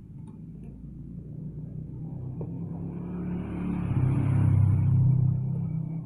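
Engine idling, then revved up once from about two and a half seconds in, held for a couple of seconds and eased back toward idle near the end.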